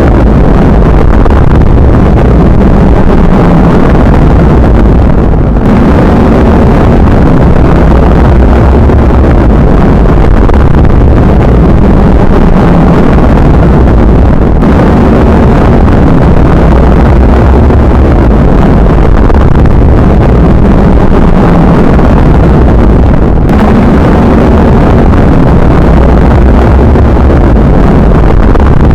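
Loud, steady rain sound effect: a dense rushing noise weighted toward the low end, with short dips about every nine seconds.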